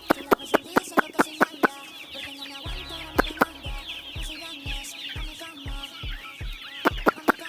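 A flock of desi chickens calling all at once, a dense chatter of short high chirps and clucks, over music with a steady drum beat.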